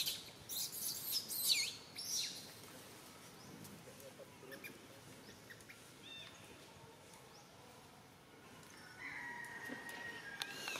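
High-pitched animal calls: several loud squeals that slide down in pitch in the first two seconds, a few faint short calls in the middle, and one long held call near the end.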